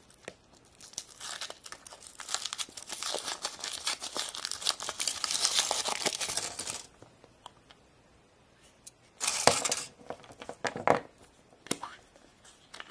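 Foil wrapper of a Kinder Surprise chocolate egg being torn and crinkled off by hand for several seconds. About nine seconds in comes a short, loud crack, then a few clicks as the egg is broken open and its plastic toy capsule handled.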